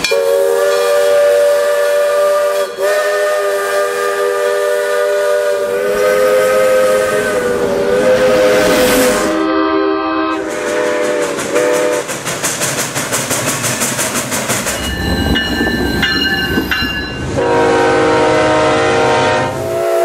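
Train whistles and horns edited together: a steam locomotive's chime whistle blows long and steady for about nine seconds, then a lower horn note sounds briefly. A fast, even rhythmic clatter follows, and another whistle chord sounds near the end.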